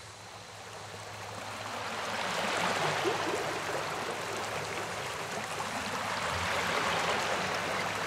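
Water gushing from a stone spout and splashing into a stone temple tank: a steady rushing splash that grows louder over the first few seconds.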